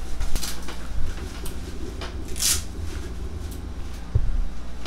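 A person shifting and settling face down on a padded vinyl massage table: scattered knocks and rustles over a low rumble, with a short hiss about halfway through.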